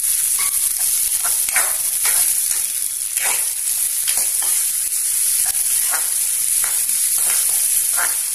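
Chopped small onions (shallots) sizzling as they sauté in hot oil in a metal kadai, stirred with a metal spoon that scrapes against the pan about once or twice a second.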